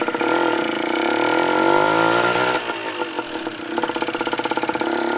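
Motorbike engine pulling away, its pitch rising for about two seconds, then dropping suddenly as it shifts gear and settling into a steady, pulsing run, heard from the pillion seat.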